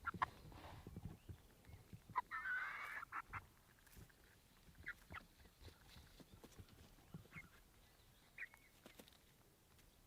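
Young chickens calling faintly with short chirps and clucks, one louder squawk about two seconds in, with scattered small taps.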